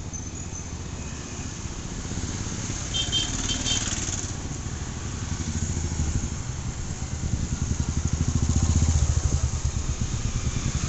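Motorcycle engine running on the move, a fast low pulsing that grows louder from about seven seconds in.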